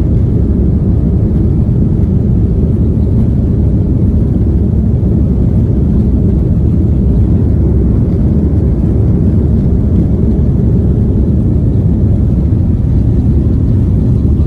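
Airliner cabin noise: a steady, loud low rumble of jet engines and airflow.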